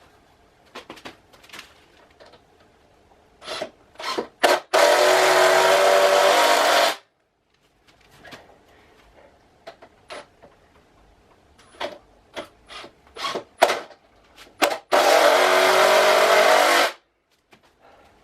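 Cordless drill running at a steady speed in two bursts of about two seconds each, driving screws into the workbench frame, with short clicks and knocks of handling in between.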